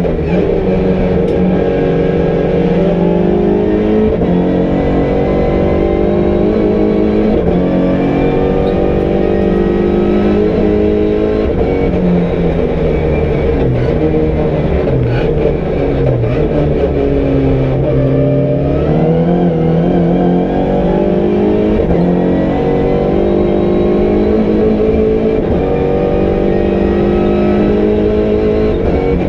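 MINI Challenge race car's engine heard from inside the cockpit under racing load, the revs climbing through each gear and dropping back at the shifts and lifts for corners.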